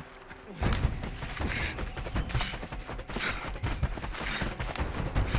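Rapid gunfire in a film sound mix, starting abruptly about half a second in and going on as dense, overlapping volleys of shots.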